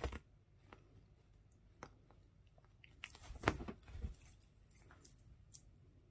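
Cat playing with a toy: scattered light clicks and scuffs, then a denser burst of rustling and clatter about three seconds in, with a few more clicks after it.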